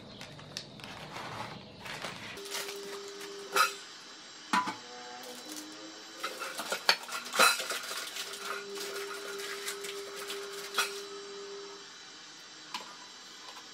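Stainless steel pan and extender ring of a tabletop halogen convection oven being handled and fitted onto the glass bowl: a run of sharp metal clinks and knocks, loudest around a third and a half of the way through, with a steady tone held twice for a few seconds.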